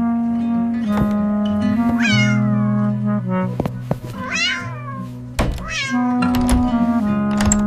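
A cat meowing several times, each meow sliding down in pitch, over background music.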